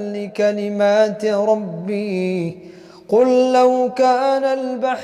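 A man's voice chanting Quran recitation in a melodic tajwid style, with long held and ornamented notes and a short breath pause about two and a half seconds in.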